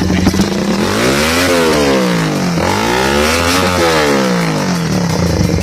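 Suzuki R150 motorcycle engine breathing through an aftermarket power-pipe exhaust, blipped twice from idle. The pitch climbs and drops back two times, then settles back to a steady idle near the end.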